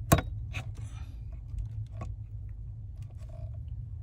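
A sharp click just after the start, then a few fainter clicks, over a steady low rumble.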